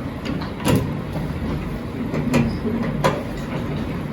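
Handling noise: three sharp knocks, about 0.7, 2.3 and 3 seconds in, with rustling over a steady low room rumble, as a patient is moved back into her resting position on a bed.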